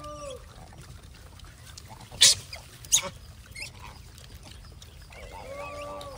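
A troop of gray langurs being hand-fed peanuts: a short steady pitched call near the start and again near the end, and two sharp cracks about two and three seconds in.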